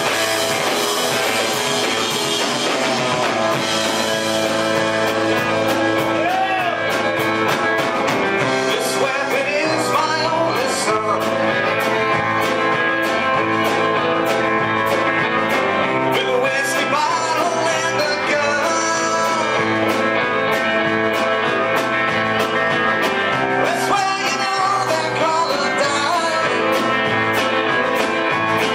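Live rock band playing: electric guitar chords and lines over a steady drum beat.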